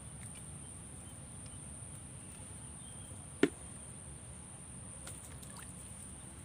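A single sharp knock about three and a half seconds in, over a steady low background rumble and a faint, steady high whine.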